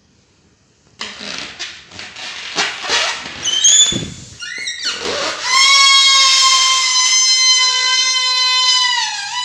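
Rubber balloon being handled: a run of rubbing, scuffing squeaks about a second in, then a long, loud squealing tone that starts to waver in pitch near the end.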